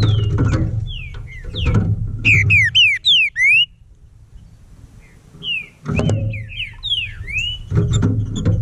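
Green-winged saltator (trinca-ferro) singing: quick loud whistled notes that slide up and down, with a fast run of them about two and a half to three and a half seconds in and a pause of about two seconds after it. Background music with a low steady beat plays under the song and stops during the pause.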